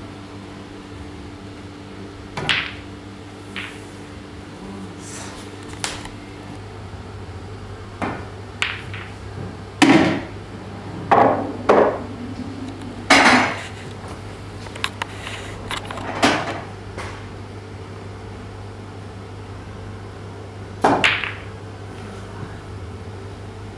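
Pool shots on a pub pool table: the cue tip striking the cue ball, and balls clacking against each other and the cushions. About a dozen separate sharp knocks come irregularly, with a few seconds' gap between shots, over a steady low hum.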